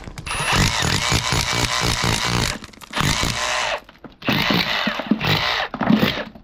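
Handheld power tool running against brickwork in bursts, cutting or breaking out the mortar around a damaged brick, with two short pauses partway through.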